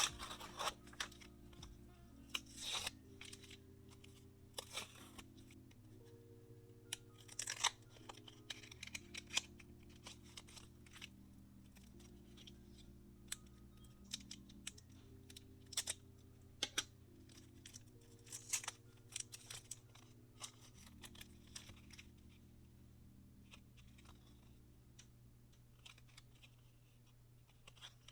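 Soft background music with a slow, steady chord pattern, over scattered crinkling, tapping and tearing sounds of paper and plastic packaging being handled and opened.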